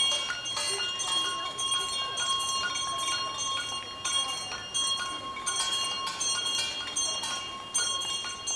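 People clapping and banging things along the street, a quick uneven run of sharp strokes, over several steady high-pitched tones.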